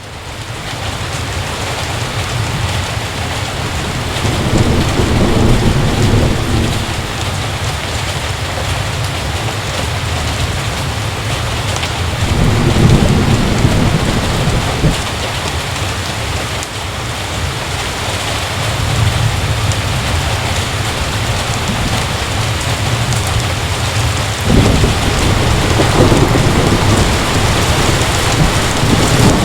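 Heavy rain falling steadily, with low rolls of thunder swelling up three times.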